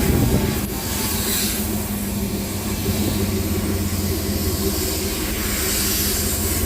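GMC Yukon Denali's V8 idling steadily while the brake pedal is pumped. No squeak comes from the rear brakes, whose caliper pistons have been oiled to cure a braking squeal.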